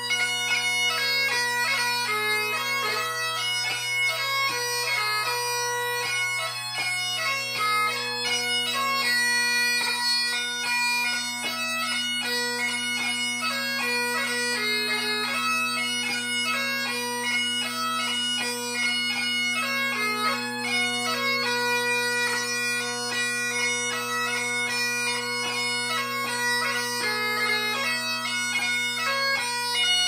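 Great Highland bagpipe played solo: a 6/8 march on the chanter over the steady drones, the melody moving quickly with short gracenote flicks between notes.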